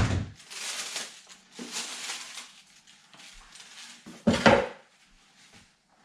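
Sneakers and their packaging being handled: a sharp knock, then rustling, then a second heavy thump about four seconds in.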